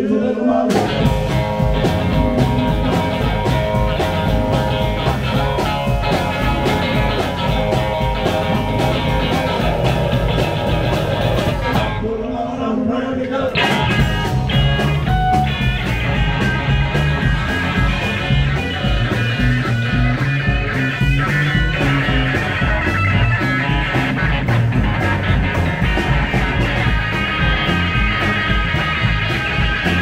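Live rock and roll band playing, with electric guitar over a steady drum beat; the band briefly drops back for about a second, around twelve seconds in.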